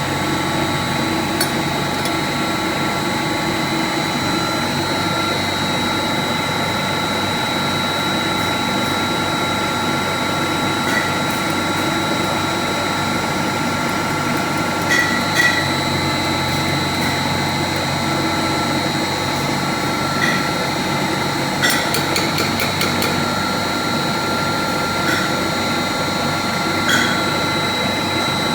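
Steady machine hum with a high whine, with scattered short metal clinks and taps of hand tools at work.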